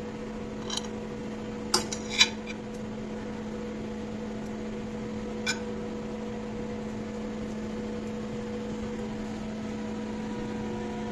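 Steady electrical appliance hum, with a few light clicks and clinks of dishware about one and two seconds in and once more about five and a half seconds in.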